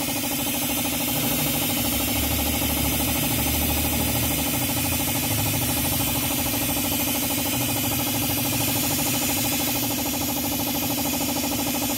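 Air compressor running steadily, with the hiss of the compressed-air venturi vacuum tool sucking cleaning fluid and loosened carbon out of an engine cylinder through the spark plug hole.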